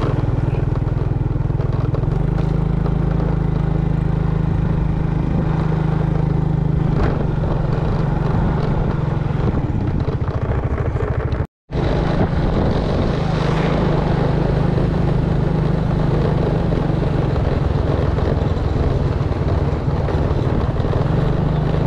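A vehicle engine running steadily, held at an even pitch. It breaks off completely for a split second about halfway through, then carries on.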